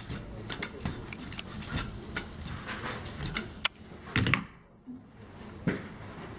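Wooden and metal pieces of a hand-set type forme being handled on the bed of a wooden hand printing press: a run of small clicks and knocks, with a louder thump about four seconds in.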